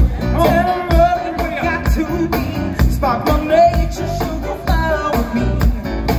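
Live band playing through a PA: a woman singing lead over a drum kit's steady beat, electric guitars and bass.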